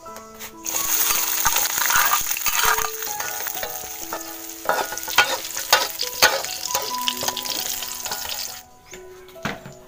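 Chopped chilies, shallots and garlic sizzling in hot oil in a wok, stirred and scraped with a perforated metal spatula that clicks against the pan. The sizzling starts about half a second in and cuts off near the end.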